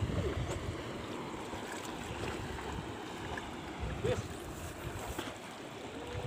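Steady wind buffeting the microphone over sea ambience.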